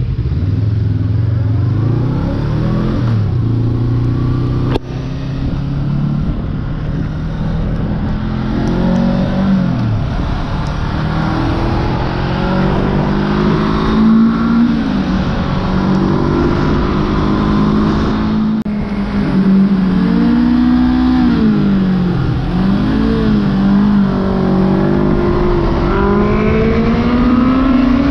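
Honda CB500F 2021's 471 cc parallel-twin engine accelerating hard, heard from the rider's seat. Its pitch climbs and drops back at each upshift, several times, over a rush of wind noise.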